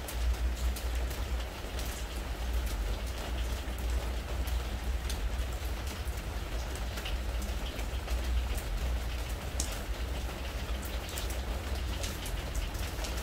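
Spring rain falling steadily on a preservative-treated wooden deck, with many separate sharper drop taps and a low rumble underneath.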